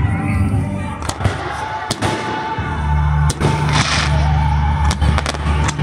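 Aerial fireworks shells bursting in a series of sharp, irregularly spaced bangs, with a crackling burst about four seconds in.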